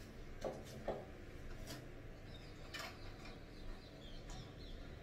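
A few faint, scattered clicks and taps over low room noise, with a few faint, short high chirps near the end.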